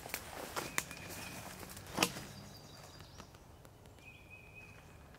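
Footsteps crunching through leaves and brush on the forest floor, a few sharp steps in the first two seconds, the loudest about two seconds in, then fading quieter. Faint high held whistles sound in the background.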